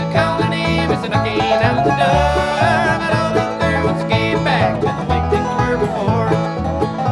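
Bluegrass band playing, banjo to the fore over guitar and a pulsing bass line, with a lead line that slides and wavers between notes.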